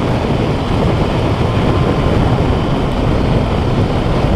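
Loud, steady wind roar buffeting the microphone on a 2006 Yamaha FJR1300A motorcycle riding at speed, with the bike's engine and tyre noise mixed into it.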